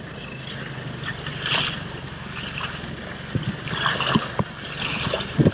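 Four-wheel-drive truck driving, its engine running with a steady low hum under road noise, with several sharp knocks and rattles as it goes over bumps.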